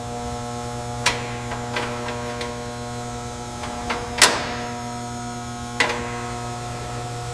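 A steady hum made of several tones, broken by a handful of sharp clicks, the loudest a little over four seconds in.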